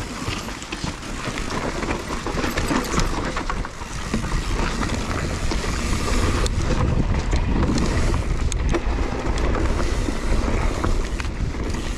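Mountain bike riding fast down a dusty, rocky dirt trail: tyres rolling over dirt and stones, and the bike rattling and knocking over bumps, with wind buffeting the microphone. The rumble grows heavier from about four seconds in.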